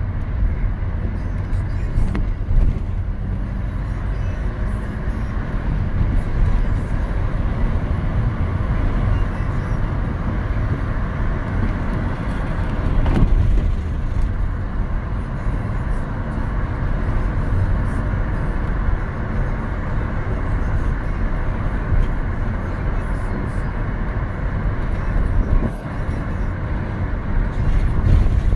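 Car driving through city traffic: a steady low rumble of engine and road noise.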